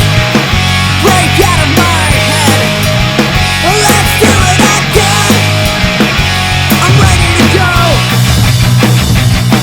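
Loud punk-style rock music: distorted guitars over a steady bass line, with gliding guitar or vocal lines.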